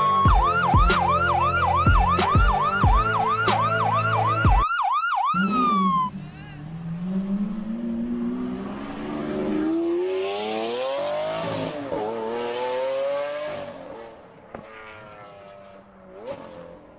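Toy ambulance's electronic siren sounding in fast up-and-down sweeps, about three a second, over background music with a steady beat; it cuts off suddenly about four and a half seconds in. Then a rising, engine-like rev with whooshing noise swells and fades away near the end.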